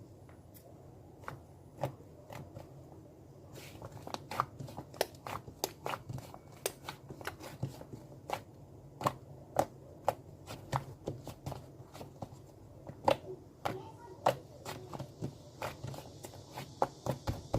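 Slime being pressed and squeezed by hand, giving off irregular crisp popping clicks, sparse at first and then several a second from about four seconds in.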